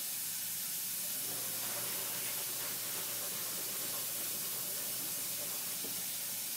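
Steady hiss of a dental suction line running during work on a tooth.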